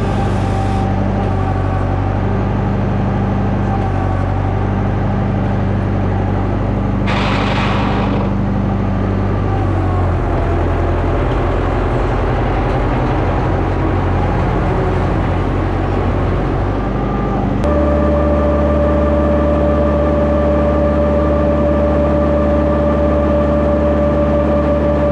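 Massey Ferguson 283 tractor's diesel engine running steadily while pulling a hay rake, with a brief rattle about seven seconds in. About 18 seconds in the sound cuts abruptly to a different, steadier hum with a higher tone over it.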